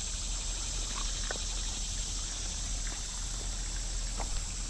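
Creek water trickling steadily, under a constant high hiss, with a few faint short ticks scattered through.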